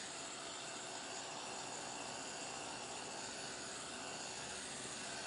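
Handheld electric heat gun blowing hot air steadily, a constant airy hiss, as it dries a damp print on fabric.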